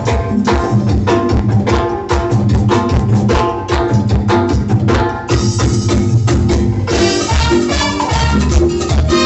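Latin band playing live, salsa-style music with a steady percussion beat and bass. About seven seconds in, brighter held notes come in and the sound grows fuller.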